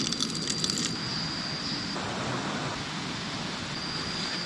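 Roasted coffee beans clattering into a wooden cup as a quick run of small clicks in the first second, over a steady rushing hiss of forest ambience. A thin, high, steady insect drone fades out about two seconds in and comes back near the end.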